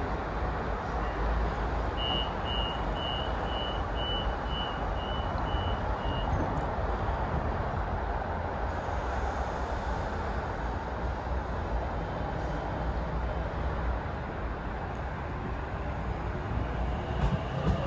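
Door-closing warning beeps of a Sydney Trains double-deck electric train standing at the platform: about nine short, high beeps at roughly two a second as the doors shut, over the steady hum of the stationary train.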